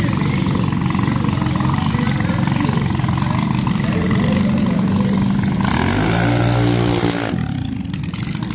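Junior dragster engine running steadily with a rough note, then a louder rev about six seconds in that falls in pitch over a second or so.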